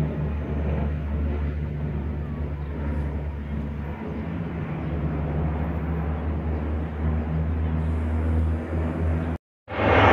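Canadair water bomber's propeller engines droning steadily in flight. Near the end the sound cuts out for a moment and returns louder.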